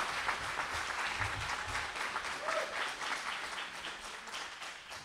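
Audience applauding, gradually fading out toward the end.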